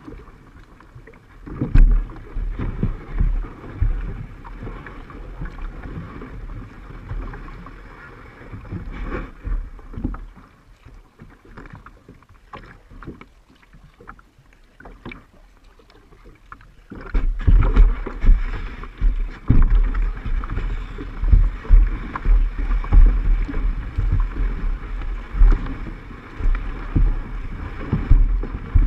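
A plastic sit-on kayak being paddled on a lake: water sloshing and splashing under the paddle strokes, with knocks against the hull and low buffeting on the camera microphone. The strokes grow louder and more frequent past the middle, coming about once a second.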